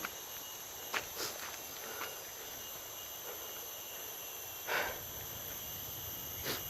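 Steady high-pitched insect chorus, with a few footsteps.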